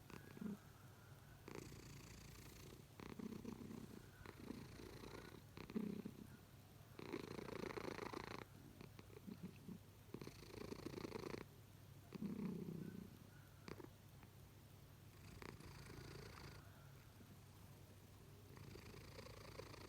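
Domestic cat snoring in its sleep: soft, faint snoring breaths that come about every two to three seconds.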